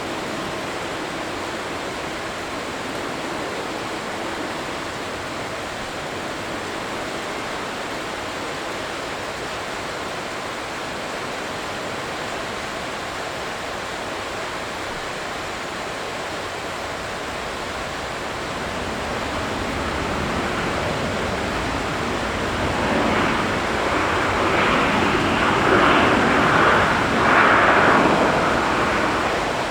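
Jet airliner's engines passing: a steady distant rumble that swells into a loud roar in the last third, peaks, and falls away just before the end.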